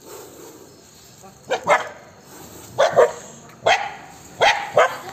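A dog barking in sharp, separate barks, about six of them, often in quick pairs, starting about a second and a half in: alarm barking at a cobra.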